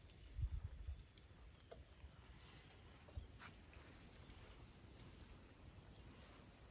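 Faint insect chirping, a high pulsed trill about half a second long repeated roughly every second and a quarter. A soft low thump comes about half a second in, and a few faint clicks follow.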